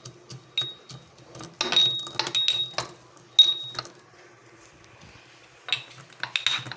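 Roasted peanuts being crushed: a run of sharp strikes, most of them ringing briefly like metal. About four seconds in there is a quieter spell of faint rubbing, then a quick cluster of strikes near the end.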